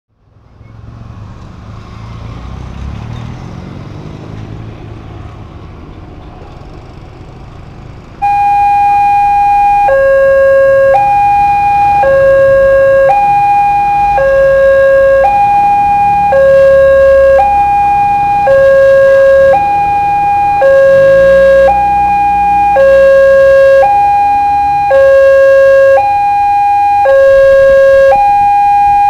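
Road traffic rumbling for about eight seconds, then a level-crossing warning alarm starts abruptly: a loud electronic two-tone signal, alternating high and low about once a second and repeating steadily, warning that a train is approaching.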